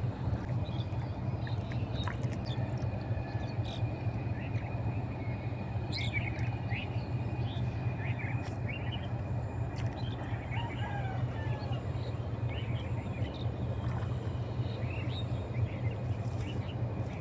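Birds chirping and calling in short, scattered notes over a steady low rumble.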